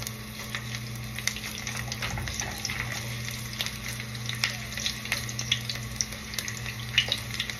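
Garlic cloves sizzling in hot olive oil in a nonstick frying pan, a steady hiss with scattered crackles as they are stirred with a spatula. A steady low hum runs underneath.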